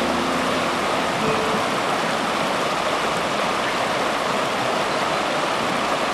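Steady rushing of a shallow whitewater rapid pouring over rocks.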